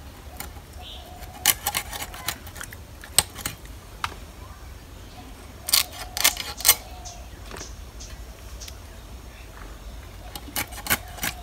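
A knife clicking and tapping as tilapia is cut into pieces, in short clusters of sharp clicks a few seconds apart.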